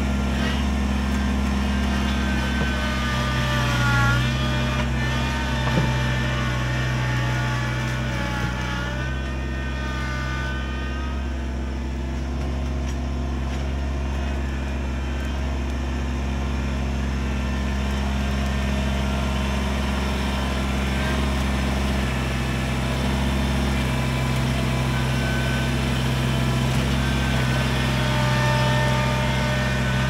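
Kubota BX23S compact tractor's three-cylinder diesel running steadily under load while the backhoe works, with a hydraulic whine rising and falling now and then.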